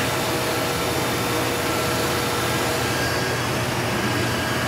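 Steady mechanical hum and hiss of running machinery or ventilation in a machine shop, with a few faint steady tones and no change in level.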